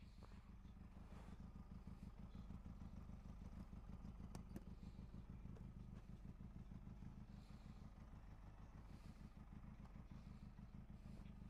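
Benelli TRK 502X's parallel-twin engine running steadily, heard faintly, with a few light clicks.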